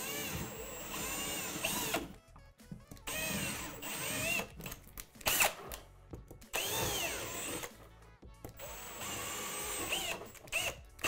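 Milwaukee cordless drill boring half-inch holes through drywall in several short runs, the motor pitch rising and falling as each run starts and stops.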